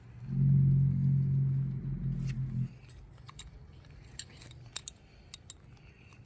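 A steady low mechanical hum runs for about two and a half seconds, then stops. Several light metallic clinks of tools and parts follow.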